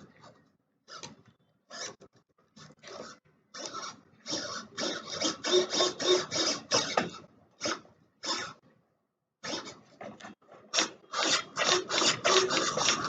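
Runs of short scraping strokes, several a second, with brief pauses between the runs.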